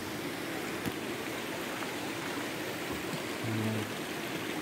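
Shallow stream flowing over rocks: a steady rush of running water, with a brief low hum about three and a half seconds in.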